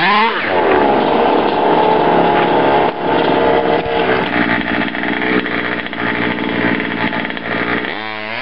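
Freshly rebuilt 30.5 cc two-stroke engine of an HPI Baja 5B RC buggy revving up and held at high revs for several seconds. It drops back off near the end.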